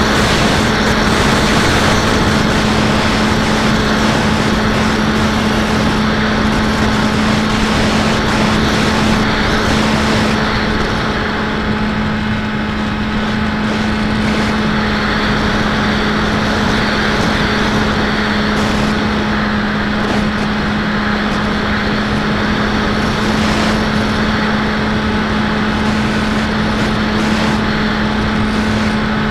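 Electric outrunner motor and propeller of a Bixler 1.1 foam RC plane in cruising flight, heard from the onboard camera: a steady drone with a constant pitch under a rush of wind, easing slightly about twelve seconds in.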